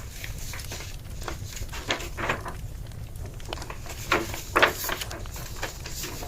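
Wood fire crackling with many small pops over a low rumble, with a few louder rustling knocks about two seconds and four and a half seconds in.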